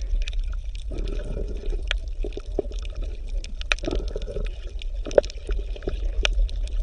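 Water bubbling and gurgling over a steady low rumble, with many scattered small clicks and pops, like underwater sound in an aquarium tank.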